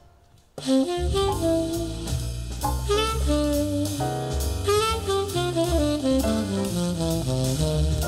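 Jazz tenor saxophone playing a melody over bass and drums, reproduced through Advent Laureate loudspeakers. The music drops to a brief pause at the start and comes back in under a second later.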